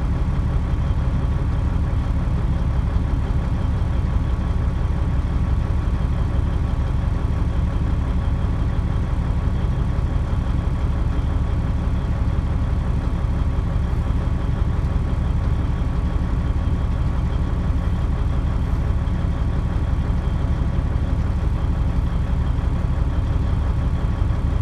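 Vehicle engines idling steadily, heard from inside a car: a low, unchanging drone.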